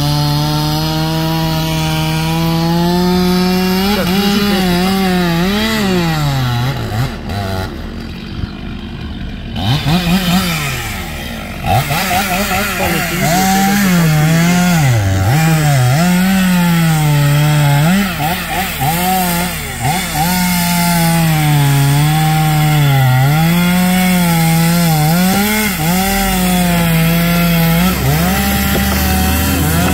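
Two-stroke chainsaw cutting into the trunk of a large spruce, its engine at high revs and bogging down again and again as the chain bites. About seven seconds in the revs fall away for a few seconds, then it comes back up to full throttle and keeps cutting.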